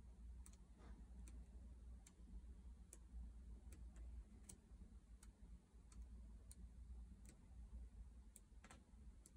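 Near silence with faint, regular ticking about every three quarters of a second, and the soft rustle of large book pages being turned about a second in and again near the end.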